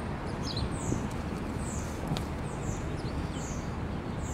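A bird chirping, short high falling calls about once a second, over a steady low rumble.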